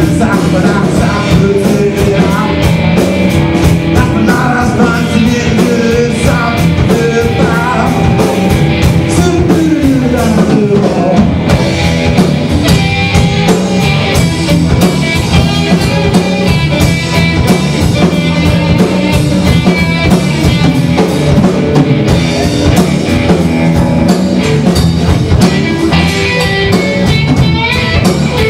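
Rock band playing a blues-rock improvisation live on electric guitar, bass guitar and drum kit, the drums keeping a steady beat. About eight seconds in, one line slides down in pitch over a couple of seconds.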